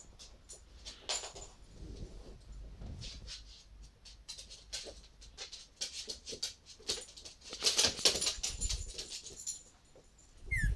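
Coton de Tulear–long-haired Chihuahua puppies scrabbling about at play, a busy run of claw scratches and clicks that is thickest a little past the middle, with a short high whimper near the end.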